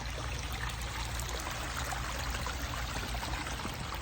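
Water of a pondless backyard waterfall spilling over rocks and running down a rock-lined stream bed: a steady splash and trickle.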